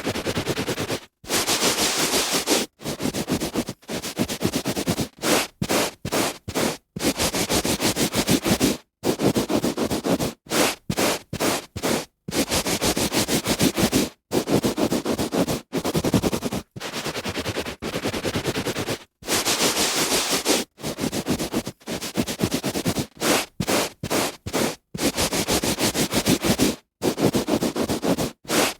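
A hand rubbing back and forth on a carpet: a scratchy hiss that comes in runs of half a second to two seconds, broken by brief silent gaps.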